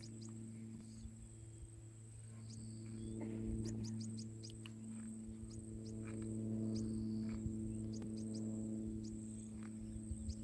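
Safari vehicle engines running close by, a steady low hum that grows louder and eases off twice, with faint scattered high ticks over it.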